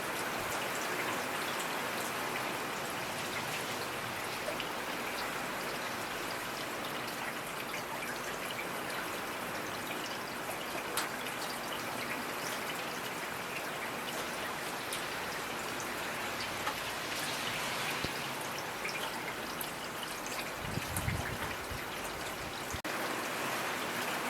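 Steady rainfall, with individual drops pattering and ticking over an even hiss. A few brief low rumbling swells come near the end.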